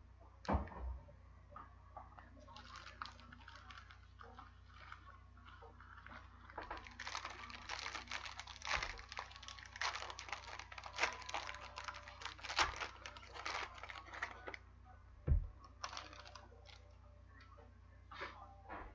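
Plastic wrapper crinkling and crackling as a sealed box of trading cards is opened, with scattered taps of cardboard and cards being handled and one louder knock about fifteen seconds in.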